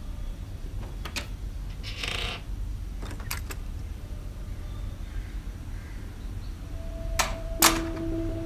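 A door latch and a barred metal grille door being unbolted and opened: scattered metal clicks and a short scraping creak, then two sharp metallic clacks near the end, after which a low steady musical tone starts and holds.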